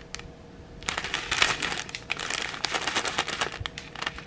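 Small clear plastic zip bag of rhinestone drills crinkling as it is handled, a dense crackle starting about a second in.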